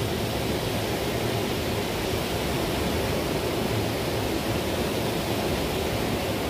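Steady rush of ocean surf breaking on the beach, an even noise with no distinct events.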